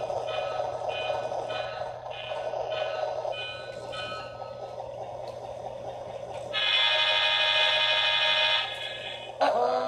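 HO-scale model locomotive's sound unit playing a bell that rings about twice a second for the first four seconds over a steady engine hum, then a horn blast of about two seconds.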